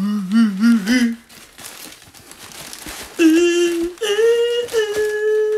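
A man humming a tune: a few short wavering notes, then a pause with faint rustling of tissue paper, then two long held notes, the second higher.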